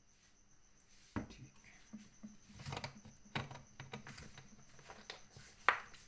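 Plastic bottle and cap being handled and set down on a counter: a series of light clicks and knocks, the sharpest about a second in, in the middle and near the end. A faint steady cricket chirr runs beneath.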